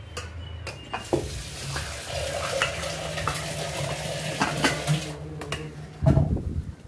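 Tamarind-and-masala curry base being stirred and mixed in a steel pot, a wet sloshing with scattered light clinks of steel vessels. There is a louder thump about six seconds in.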